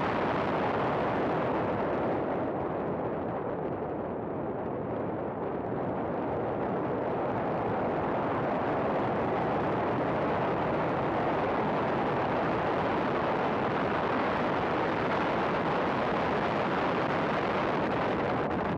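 A race car at track speed: a steady, dense rush of engine, wind and road noise picked up by a camera mounted on the car.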